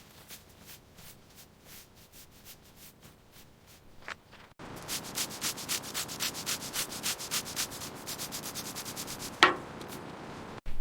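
Rhythmic abrasive sanding strokes, faint and slower at first, then louder and quicker at about four strokes a second from about halfway in. A single sharp knock comes near the end.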